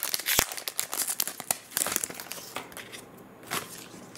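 Foil wrapper of an Upper Deck hockey card pack being torn open and crinkled by hand: dense crackling for about two seconds, then sparser crinkles with one more burst near the end.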